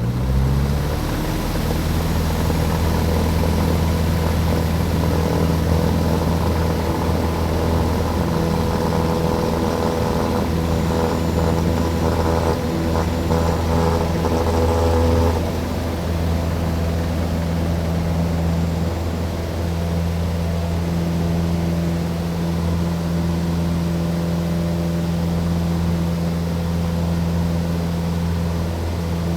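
Aircraft engines in steady flight: a constant droning hum that fades in at the start, then holds steady, dipping slightly in level about halfway through.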